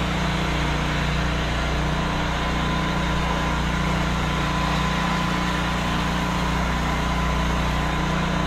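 Pressure washer's petrol engine running steadily at constant speed.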